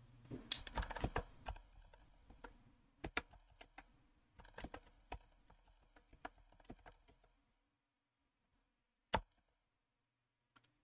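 Typing on a computer keyboard: irregular keystrokes for about seven seconds, then a pause and one louder click near the end.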